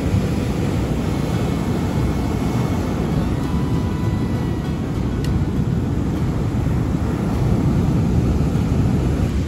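Heavy ocean surf breaking and washing up a beach: a steady, deep rush of noise, with wind buffeting the microphone.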